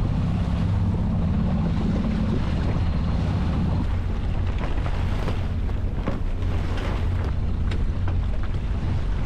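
A sailboat's engine running steadily under way, a low, even hum, with wind buffeting the microphone. A few faint clicks and knocks come through in the middle.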